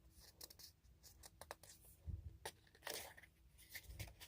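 Faint paper rustling and crinkling from a K-pop album's printed booklet pages and inserts being handled and turned, with a string of short light ticks and one longer rustle about three seconds in.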